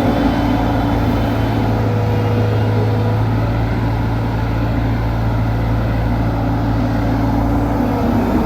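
Engine of heavy road-construction machinery running steadily, a constant low hum without change in speed.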